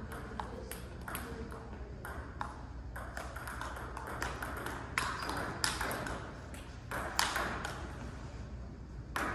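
Table tennis ball struck back and forth in a rally: sharp clicks of the celluloid ball off paddles and the table top, several in quick succession, louder in the second half.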